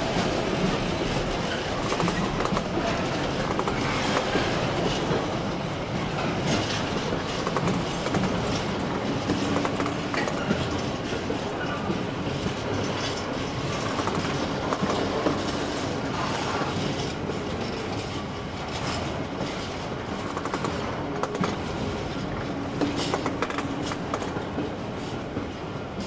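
Container freight train's flat wagons rolling past, a steady rolling noise with irregular clicks of wheels over rail joints, easing slightly toward the end as the last wagons go by.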